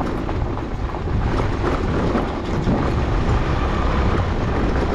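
A vehicle travelling over a rough, stony unpaved road: a steady, loud rumble with rattling.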